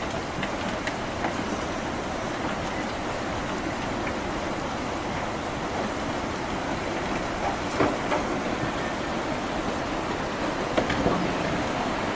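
Tsunami floodwater rushing through a town: a steady, heavy noise, broken by a few sharp cracks and knocks, the loudest about two thirds of the way in.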